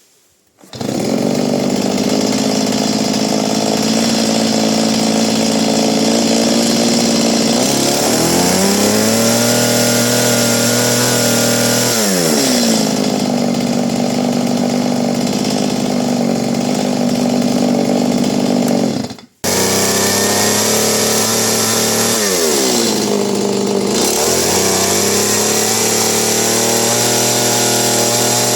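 Stihl MS170 two-stroke chainsaw running: it starts sounding suddenly and idles, is revved up and held for a few seconds, then drops back to idle. The sound cuts out for an instant about two-thirds through, after which the saw is blipped up and back down several times; it idles and revs cleanly, as in a running check.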